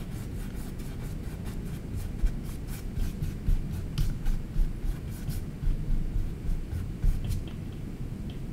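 Paintbrush strokes dragging back and forth over a stretched canvas: a run of short, irregular brushy scratches, with a steady low rumble underneath.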